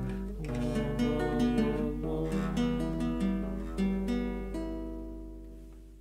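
Background music: plucked acoustic guitar playing a slow melody with picked chords, fading out over the last couple of seconds.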